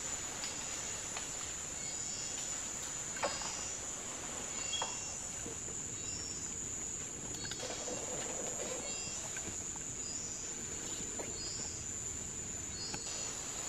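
Steady high-pitched drone of forest insects, with a few sharp snaps about three seconds in, again near five seconds and later.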